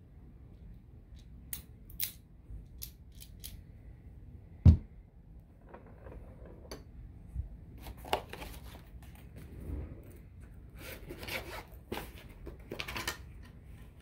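Hands handling a mogul lock cylinder with a tool in its keyway: a few light metallic clicks, one sharp knock about five seconds in, then scattered rubbing and scraping near the end as the lock is set down on a pin tray on a wooden desk.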